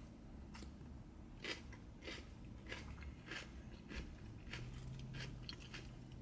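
A person chewing mouthfuls of salad, with a string of short, irregular crunches. In the last few seconds a plastic fork picks at the salad in a paper bowl.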